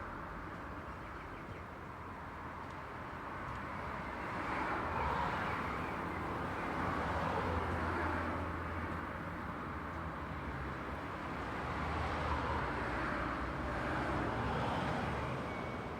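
Steady road traffic: the tyre-and-engine noise of passing cars swells and fades as vehicles go by, about four passes in the span.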